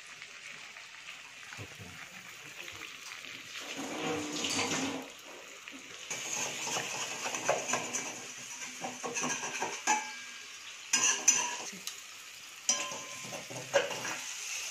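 Eggs frying in hot oil in a wok-style metal pan, a steady sizzle, with a metal spoon scraping and knocking against the pan in sharp clicks, more often in the second half.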